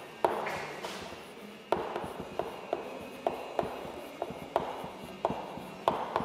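Writing on a board: an irregular string of sharp taps, about a dozen, each with a short echo in the room.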